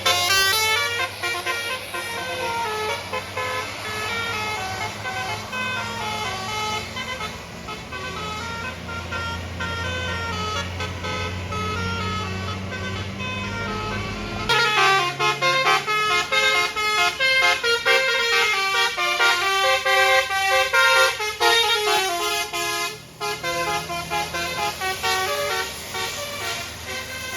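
Bus basuri horn, a multi-trumpet melodic air horn, playing a 'telolet' tune in stepping notes over a low bus engine drone. About halfway through the engine drone drops out abruptly while the horn tune carries on.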